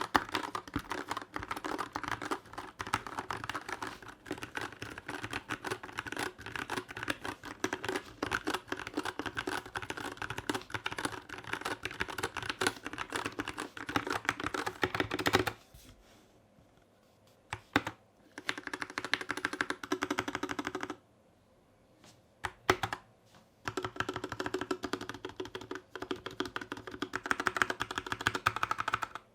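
Typing on a stock, unlubed GK64S 60% keyboard with Gateron Yellow Milky Top switches on an aluminium plate in a plastic case; the sound is a little bit hollow. A long run of fast typing stops about halfway through, followed by a few single keystrokes, a short run, two more strokes, then steady typing again near the end.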